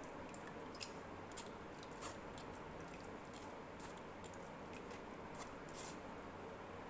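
Steel spoon scraping and pressing wet jamun pulp against a steel mesh strainer to push the juice through: faint, irregular scrapes over a steady low hiss.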